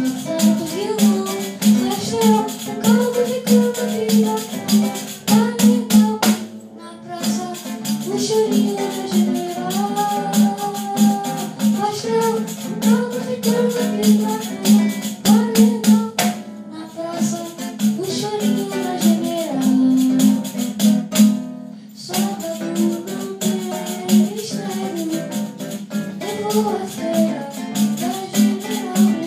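A boy singing a song, accompanied by a nylon-string acoustic guitar (violão) and a pandeiro, the Brazilian frame drum with jingles, played in a quick steady rhythm. The pandeiro drops out for a moment a few times.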